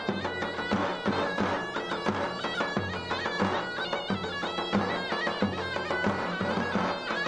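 Folk reed pipe playing a fast dance tune, with quickly changing notes over a steady low drone.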